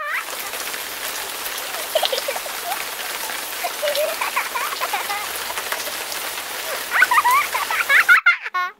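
Steady rain falling, with scattered short pitched calls mixed in; the sound cuts off abruptly near the end.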